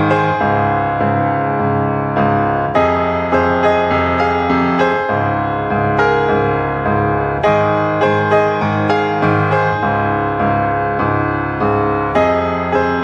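Background piano music: a gentle melody played note by note at an even, unhurried pace.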